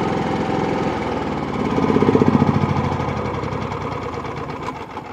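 Predator 9500 inverter generator's 459cc gasoline engine running after tripping its overload, then growing quieter over the last couple of seconds as it is switched off.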